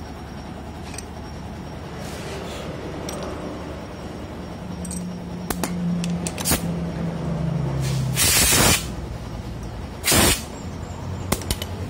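Two short, loud bursts of hissing air about a second and a half apart, preceded by a low engine hum that falls slightly in pitch, over a steady background hum.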